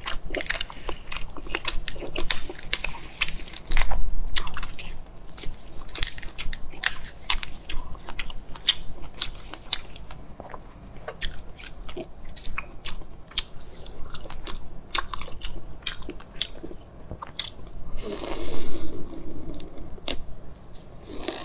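Close-miked chewing and wet mouth smacking as large boiled prawn meat in chili sauce is bitten and eaten, with many irregular sharp clicks. A longer, louder wet sound comes near the end.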